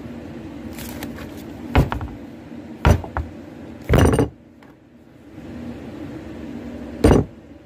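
Four sharp knocks and bumps, the third a little longer, over a steady low hum that drops away for a moment after the third knock.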